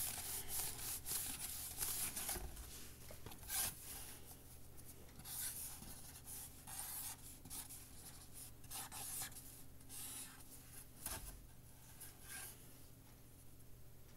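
Handwriting on paper: a pen or pencil scratching in quick short strokes, busy at first and sparser toward the end, over a faint steady hum.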